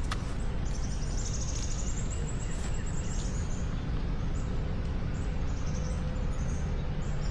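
A songbird singing a high, fast trill of rapidly repeated notes lasting a few seconds, then a few shorter high calls, over a steady low rumble.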